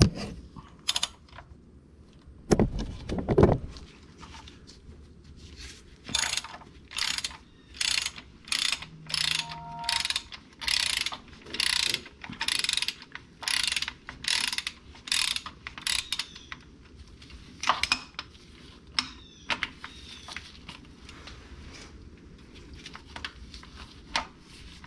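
Socket ratchet on an extension clicking in quick back-and-forth strokes, about two a second for some ten seconds, as a starter mounting bolt is loosened. A couple of dull thumps come a few seconds in, and scattered single clicks follow the run of strokes.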